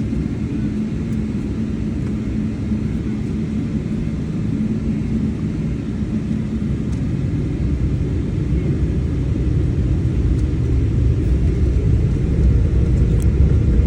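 Cabin noise inside a Boeing 777-300ER airliner on the ground: a steady low rumble of the engines and airframe that grows louder toward the end. A steady hum stops about halfway through.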